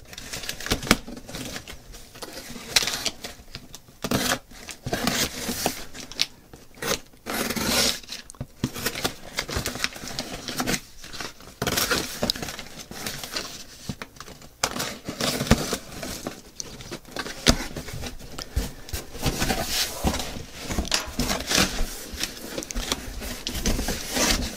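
A cardboard shipping box being opened by hand: scissors cutting along packing tape, tape and cardboard flaps scraping and tearing, in irregular scrapes, rasps and knocks.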